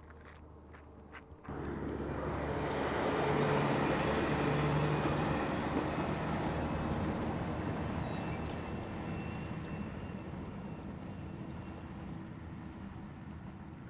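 A heavy vehicle's engine running, with a rushing mechanical noise that comes in suddenly about a second and a half in and then slowly fades.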